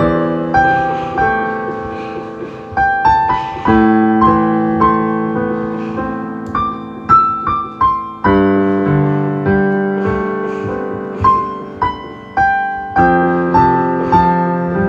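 Slow solo piano music: chords and a melody line, each note struck and left to ring and fade.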